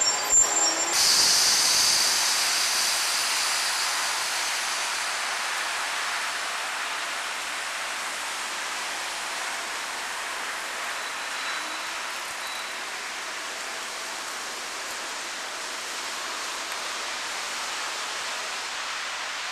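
Red electric railcar pulling away along the track, its running noise fading gradually to a steady hiss. A high whine cuts off about a second in.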